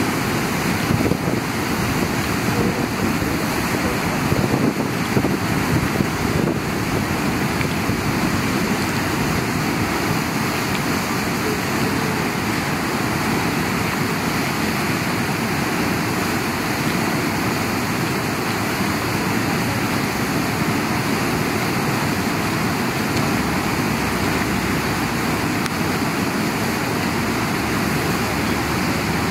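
Steady rushing noise, even and loud, with a few brief louder gusts in the first six seconds.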